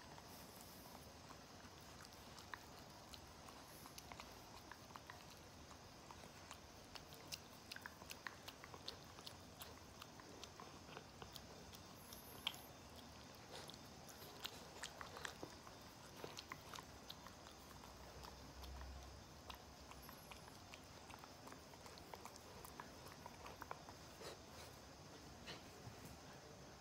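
Small dog licking and nibbling at a sleeping man's face: faint, irregular wet clicks and smacks scattered throughout.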